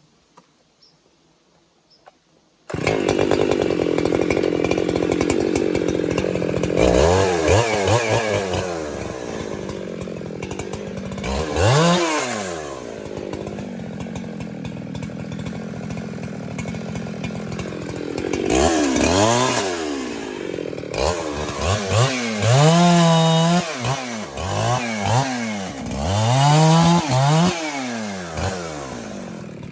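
Husqvarna 365 two-stroke chainsaw starting abruptly a few seconds in, running steadily at first, then revved up and down repeatedly with rising and falling engine pitch.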